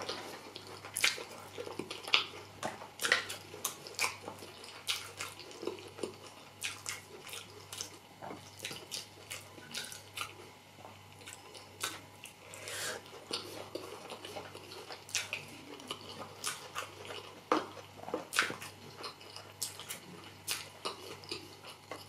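Close-miked chewing of soft, wet food (rice and beans porridge), with irregular wet mouth clicks and smacks, one or two a second.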